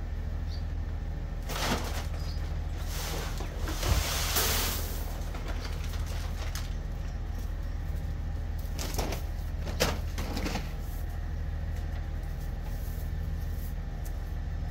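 A bag of feed oats being handled and carried, crinkling and rustling in a few bursts with the loudest about three to five seconds in. A steady low hum runs underneath.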